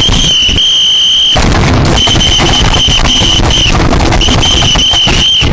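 A loud, harshly distorted high-pitched whistle-like tone, blaring in stretches of about half a second to a second and a half with short breaks, over a dense layer of crackling noise.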